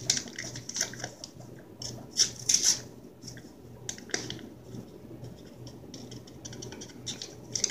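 A foil condiment packet being crinkled and torn open by hand: irregular sharp crackles and rustles, loudest a little over two seconds in, with a run of rapid small crackles near the end. A low steady hum sits underneath.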